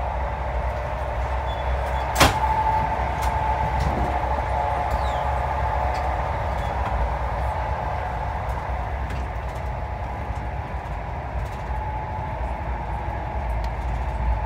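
A passenger train running, heard from inside the carriage: a steady rumble of wheels on the rails with a faint whining tone through it, and one sharp click about two seconds in.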